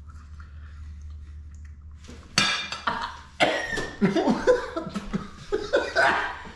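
Two men gagging, coughing and retching from about two seconds in, in loud irregular heaves and groans without words. They are reacting to the rotten-fish taste of smoked common merganser.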